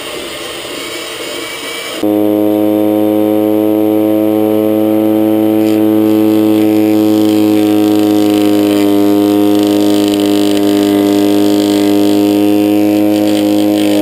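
An electric drill runs for about two seconds, then cuts to a gas rotary lawnmower running at a steady pitch with a steady hum, its blade spinning close beneath a plywood plate while a stick is fed into it.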